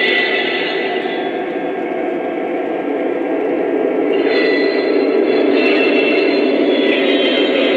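O-gauge model freight cars rolling along three-rail track with a steady rumbling clatter. A high whine rides over it briefly at the start and again from about four seconds in.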